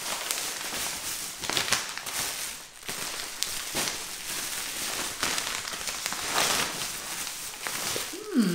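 Plastic and paper mailing-bag packaging rustling and crinkling in a string of short crackles as a soft parcel is torn open and a garment in a clear plastic bag is pulled out.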